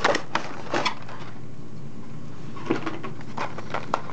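Cardboard box being pulled open, giving a few scratchy rustles and clicks in the first second; after a pause, a clear plastic blister tray is handled, with light plastic clicks and crinkles.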